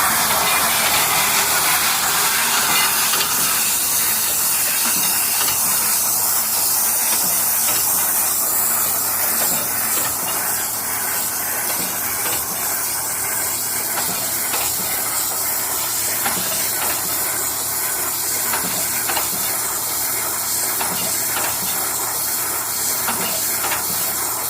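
Tractor and Kverneland 7740J baler running while baling hay: a loud, steady hissing rush of machinery with faint irregular ticks.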